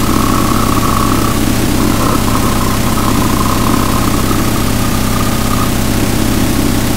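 Loud, steady wall of harsh distorted noise with a buzzing drone, a noise passage in a goregrind track.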